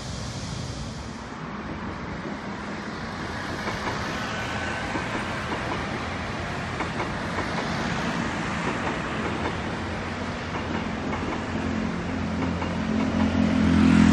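Seoul Metro Line 1 rheostatic-control electric train running past, its wheels clicking over the rail joints and the sound slowly growing louder. A low steady hum swells near the end.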